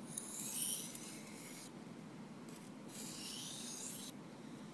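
Steel knife blade drawn across a coarse synthetic waterstone in two long sharpening strokes, each a rasping hiss of metal being ground. The stone removes metal very aggressively yet runs smoothly and softly.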